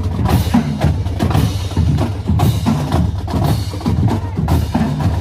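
Middle-school marching band drumline playing loudly: a steady run of drum strikes over heavy, low bass-drum beats.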